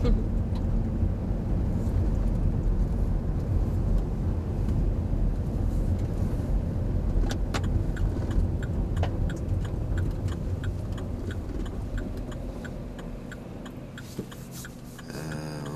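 Road and engine noise inside a car's cabin, fading as the car slows to pull over, with the turn signal ticking steadily from about halfway in.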